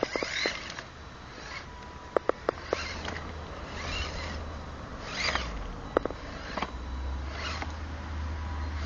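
Radio-controlled scale Pinzgauer 710M truck crawling over rocks: its small electric drivetrain gives short rising whines as the throttle is worked, with sharp clicks of tyres and stones knocking against rock, a cluster of them about two seconds in.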